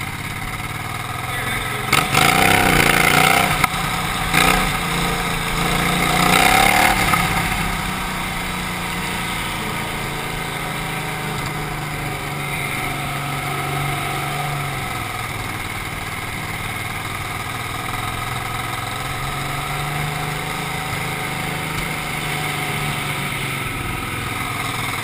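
Racing lawnmower engine heard from on board, revving up and down a few times in the first seven seconds, then running steadily at low speed.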